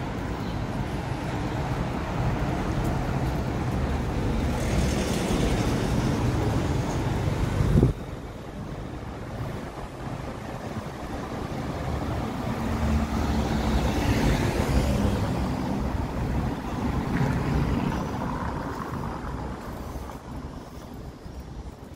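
Road traffic along a narrow cobbled city street: vehicles passing, the noise swelling and fading twice. It drops off sharply about eight seconds in.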